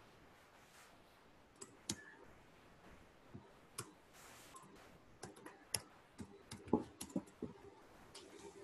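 Typing on a computer keyboard: scattered key clicks, a few at first, then a quicker run of them in the second half.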